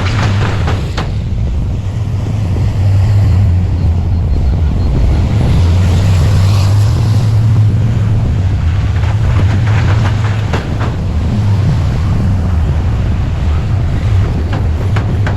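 Heavy construction machinery's diesel engine running steadily with a deep drone, with occasional knocks and clanks.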